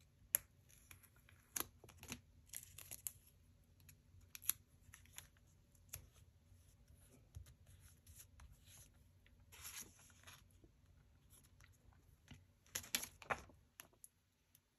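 Paper sticker sheets handled and stickers peeled off their backing and pressed onto a planner page: faint rustles and small taps, with two longer peeling rasps near the middle and toward the end.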